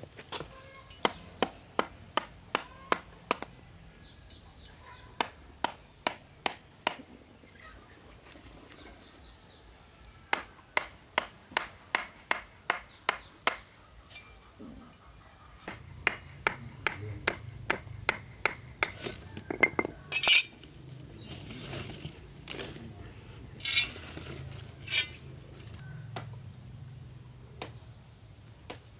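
Runs of sharp, evenly spaced knocks, about two to three a second, coming in several bursts with short pauses between, a few of them louder near the end. Under them runs a steady high insect trill.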